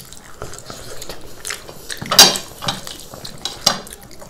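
Eating at a table: scattered light clicks and clinks on ceramic plates, with biting and chewing, the sharpest click about two seconds in.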